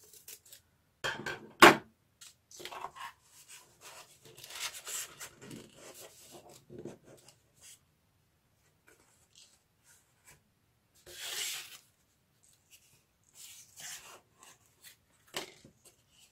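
Corrugated cardboard pieces rustling, scraping and tapping as they are handled and slotted together, in short scattered bursts. A sharp knock stands out about a second and a half in.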